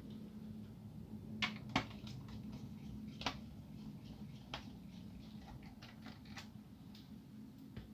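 Small sharp clicks and taps of a screwdriver working the bottom-case screws of an ASUS K53SD laptop, the loudest two close together about a second and a half in and another about three seconds in, over a low steady hum.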